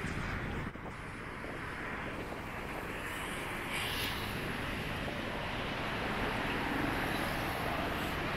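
City street ambience: steady road traffic noise from cars passing on a wide avenue.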